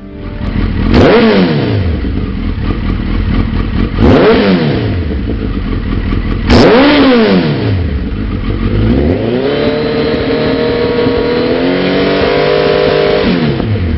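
Suzuki GSX1300R Hayabusa's inline-four engine running through a Lextek SP8C carbon-fibre slip-on silencer, revved from idle: three quick throttle blips, about a second in, about four seconds in and near seven seconds in, each rising and falling sharply. Then a slower climb to raised revs that are held, step up once more, and drop back to idle near the end.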